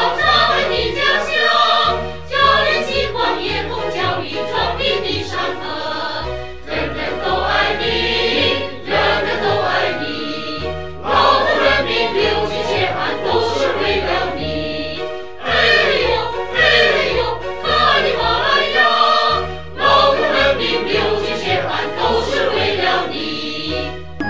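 Choral music: a choir singing over an instrumental accompaniment with a steady bass line.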